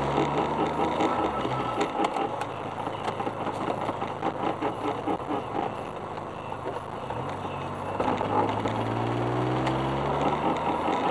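Suzuki Alto Works on the move: a rough grinding runs under the car's noise, from front hubs worn 0.5–1 mm, and it persists even with new hub bearings fitted. A low engine or drivetrain note drops away for several seconds in the middle and comes back near the end.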